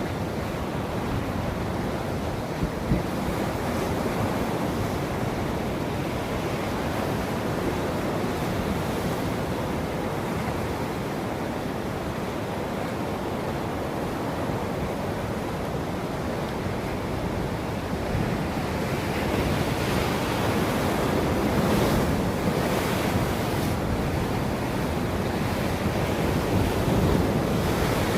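Ocean surf: waves breaking and washing ashore in a continuous rush, swelling louder in the second half as a bigger wave breaks, with some wind noise on the microphone.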